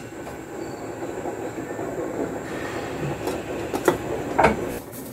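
Saucepan of chicken stewing in tomato sauce bubbling at the boil, a dense steady crackle that builds partway through. A few light knocks near the end.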